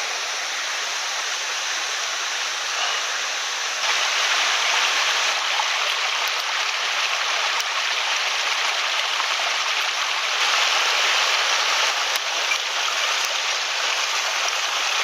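Steady rushing of water from a small waterfall on a mountain stream, getting louder about four seconds in.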